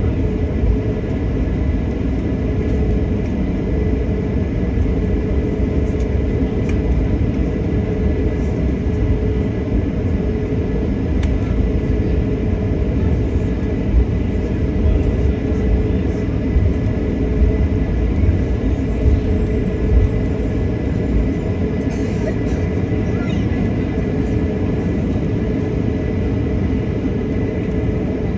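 Steady low vehicle rumble with a constant mid-pitched hum running through it and a few faint clicks.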